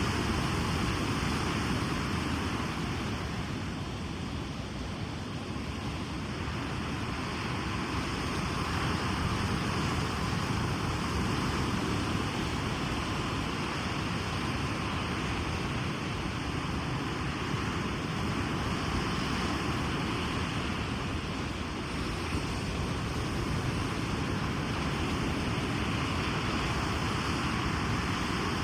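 Ocean surf: a continuous wash of waves on a beach, easing a little a few seconds in and swelling again.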